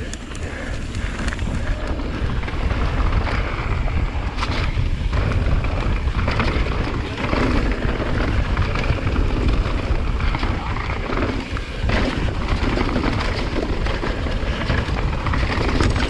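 Wind rushing over a GoPro's microphone with a heavy low rumble as a downhill mountain bike rolls down a dirt trail, mixed with tyre noise and the rattle of the bike, and a few sharper knocks along the way.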